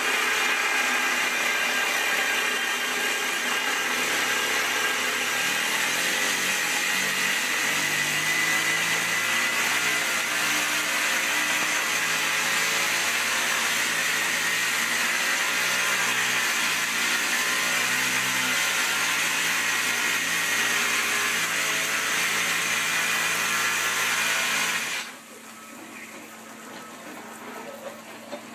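Hydraulic rock drill on a drilling rig's boom, drilling into a rock face with water flushing at the bit: a loud, steady, harsh din. It drops sharply to a much quieter level about 25 seconds in.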